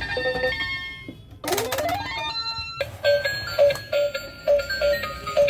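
Children's battery-powered electronic toy keyboard playing a few thin electronic notes, then a rising electronic sweep and a bright, repeating toy tune with a beep-like beat about twice a second.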